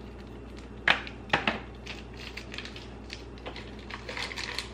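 A frozen acai puree pouch being squeezed and handled over a plastic blender cup: two sharp clicks about a second in, then a run of lighter, irregular clicks.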